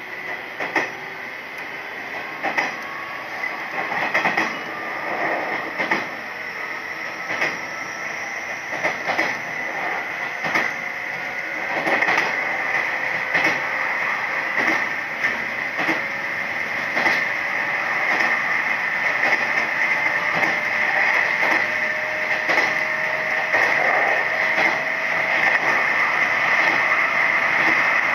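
Inside a Nishitetsu 3000 series electric train pulling away from a station: the traction motors' whine rises slowly in pitch and the running noise grows louder as the train gathers speed, with the wheels knocking over rail joints.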